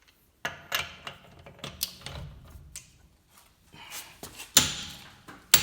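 Click-type torque wrench tightening a car's lug nut: a run of clicks and knocks, then two loud, sharp snaps near the end as the wrench breaks over, the sign that the nut has reached its set torque.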